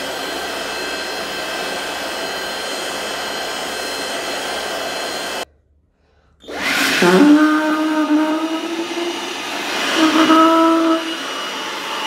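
Cordless handheld vacuum cleaner motor running steadily. About five and a half seconds in it cuts to a second of silence, then the motor starts again with a rising whine and runs on with a steady humming tone that swells near the end.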